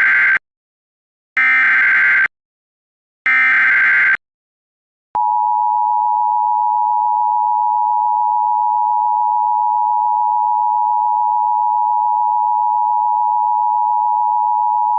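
Emergency Alert System audio: three short screeching bursts of SAME digital data, about a second each. About five seconds in, the two-tone EAS attention signal starts, a steady harsh dual-pitch tone held unchanged for about ten seconds.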